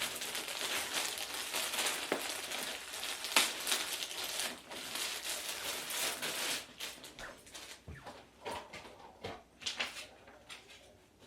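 Rustling and crinkling as the animatronic's costume shirt is handled and unpacked, lasting about six and a half seconds. Then come scattered light clicks and knocks of handling.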